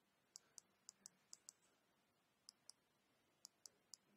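Near silence broken by about a dozen faint, sharp clicks, often in pairs about a quarter-second apart, made while letters are handwritten stroke by stroke in a drawing app.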